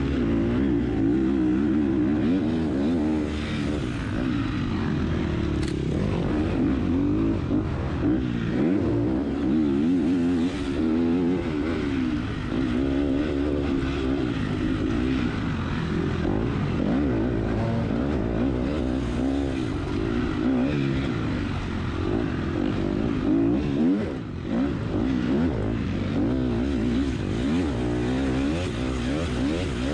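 Dirt bike engine heard from an onboard camera while the bike is raced off-road, the revs rising and falling all the time with throttle and gear changes.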